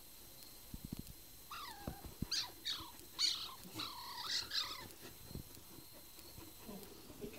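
A quick run of high squealing calls, each falling in pitch, from about one and a half to five seconds in, with a few short taps just before.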